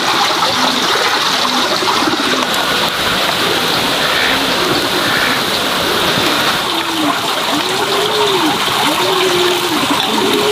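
Steady rush of running water. From about seven seconds in, a low call that rises and falls repeats about once a second.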